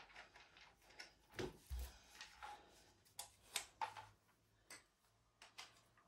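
Faint, irregular clicks and soft knocks, about a dozen, with a low thump just before two seconds in; no motor is running.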